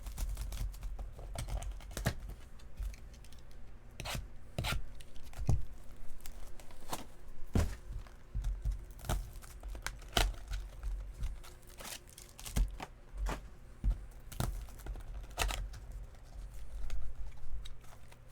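Trading card box packaging being torn open and handled: irregular tearing and crinkling with many sharp clicks and rustles.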